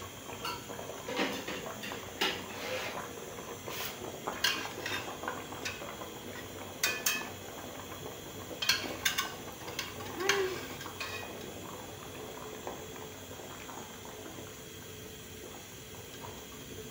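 Scattered clinks and knocks of a utensil against an aluminium cooking pot of soup as pieces of fish are put in. The clinks stop after about eleven seconds, leaving only a low steady background.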